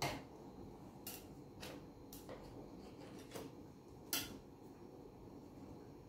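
Light clicks and taps of a ceramic bowl and a knife on a countertop as a flour tortilla is cut into rounds around the bowl. About six separate taps, the sharpest at the start and about four seconds in.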